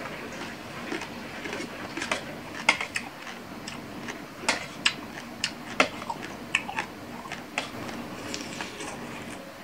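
Metal spoon clicking against a stainless steel bowl as food is stirred and picked through: a scattered run of sharp clicks, most of them between about two and a half and eight seconds in.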